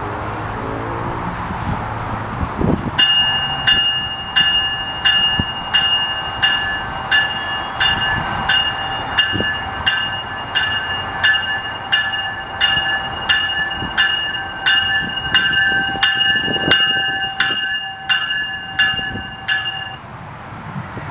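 Commuter train cab car's bell ringing steadily, about two strikes a second, as the train rolls into the station over the rumble of the train; the bell starts about three seconds in and stops shortly before the end.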